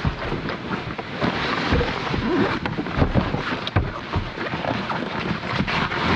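Stormy weather: wind and rain noise with deep rumbling, broken by irregular knocks.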